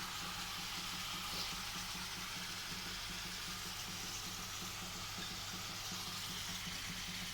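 Food frying in a pan, a steady sizzle, with a low steady hum underneath.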